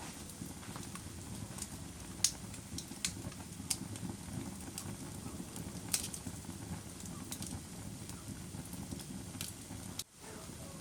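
Wood fire crackling in a fireplace: irregular sharp pops and snaps, a few of them louder, over a steady low rumble of the flames. The sound cuts out briefly near the end.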